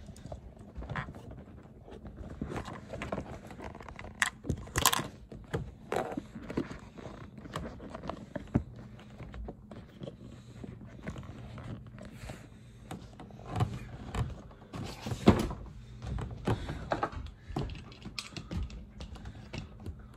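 Handling noise in a boat's engine compartment: irregular thunks, knocks and clicks as the camera is moved and set in place and parts are handled, with louder bumps about four to five seconds in and again about fifteen seconds in.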